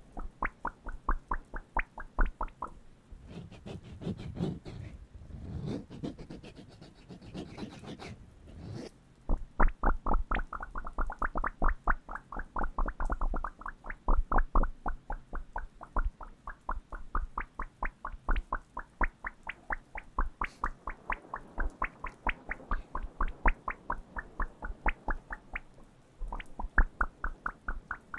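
Playing card worked by fingers right against the microphones: a fast, even run of crisp clicks, about five a second. About three seconds in, a softer stretch of rubbing and scraping takes over for several seconds before the clicking resumes.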